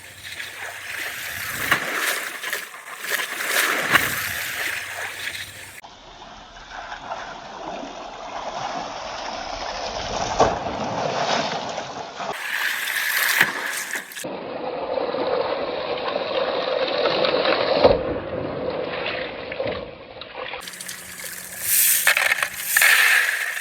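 Marbles rolling along marble-run tracks: a continuous rolling rumble with occasional sharp clicks and clacks as the balls strike the track.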